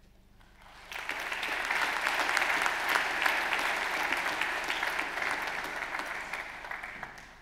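Audience applauding: the clapping starts about a second in, swells, then fades away near the end.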